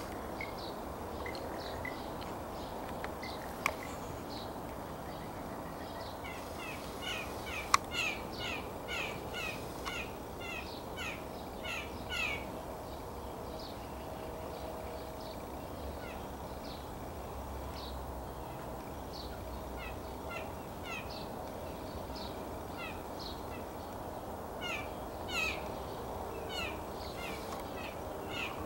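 Blue jays calling: long runs of short, falling notes, several a second, coming in two bouts, with two sharp clicks about four and eight seconds in.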